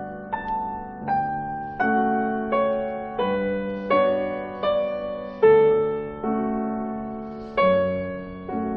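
Background music: a slow piano melody of single notes, a new one struck about every three-quarters of a second, each ringing and fading away.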